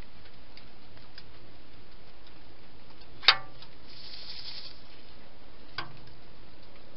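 A wild hedgehog moving about a feeding station: one sharp click about three seconds in, then a brief rustle and a fainter click near the end, over a steady camera hiss.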